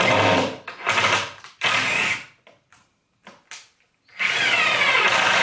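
Drill-driver driving screws into a wooden frame: a few short trigger runs in the first two seconds, some clicks, then a longer run from about four seconds in whose motor pitch sinks.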